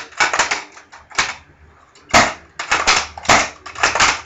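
Bursts of rapid, sharp clicking and clattering, about six short clusters with brief gaps between them.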